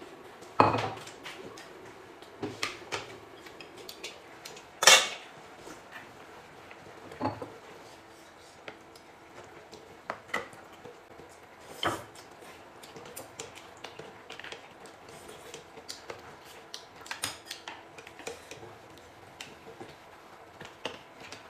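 Tableware clinking and knocking: dishes and utensils handled and set down in scattered sharp knocks, the loudest about five seconds in.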